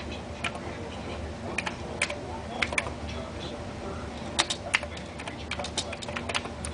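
Typing on a Commodore 64 keyboard: irregular key clicks in short runs with brief pauses between words.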